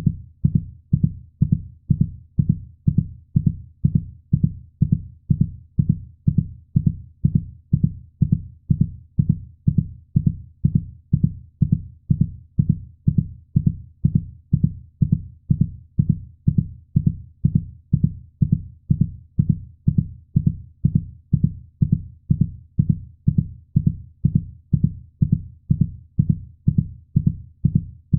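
Heartbeat sound: deep, muffled thumps repeating in a steady, even rhythm.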